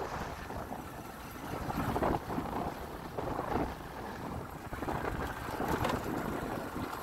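Motorbike engine running while riding, with wind buffeting the microphone; the sound swells a few times.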